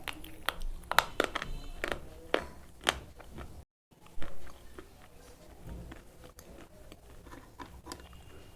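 Slate pencil bitten and crunched close to the microphone: a run of sharp, crisp cracks for about three seconds. The sound cuts out briefly, then comes softer chewing with quieter crunches.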